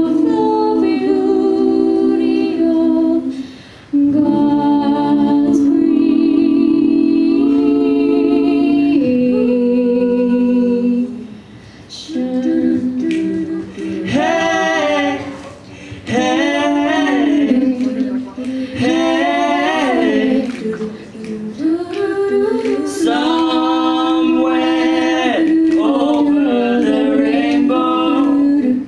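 An a cappella group of three women and a man singing in harmony into microphones, with no instruments: long held chords under a moving lead line, with a few short breaks between phrases.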